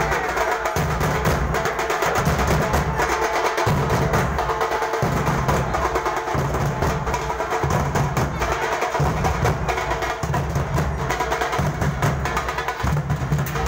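A troupe of large steel-shelled drums beaten together with thin sticks: a dense, fast clatter of strokes over a deep beat that returns about once a second.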